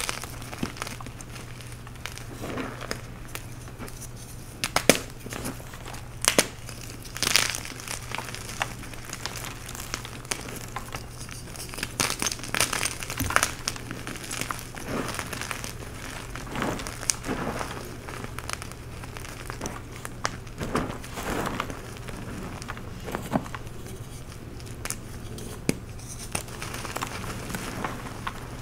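Blocks of dyed chalk crushed and crumbled by hand, with soft crunches and sharp cracks at irregular intervals and crumbs and powder sifting between them.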